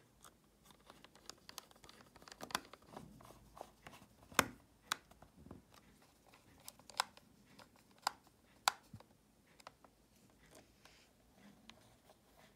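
Scattered clicks and taps from a small precision screwdriver working the tiny case screws of a Panasonic portable cassette player, with the metal-and-plastic case being handled and turned between screws. The sharpest click comes a little under halfway through, with three more in quick succession later on.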